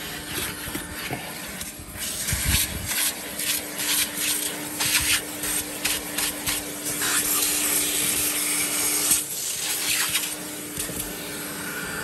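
1969 Electrolux Model 1205 vacuum cleaner running with a steady motor hum, its crevice tool sucking air in uneven surges as it is worked over a leather car seat and carpet. The rush of air settles to a steadier, quieter hiss about nine seconds in.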